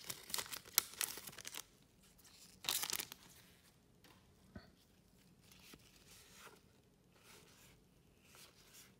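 Foil trading-card pack wrapper being torn open and crinkled, in crackly bursts through the first second and a half and once more about three seconds in. Then only faint rustling as the cards are handled.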